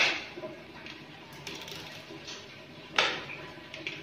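Utility knife blade scoring a PVC ceiling panel along a metal ruler, a faint scratchy drag, with sharp clicks at the start and about three seconds in.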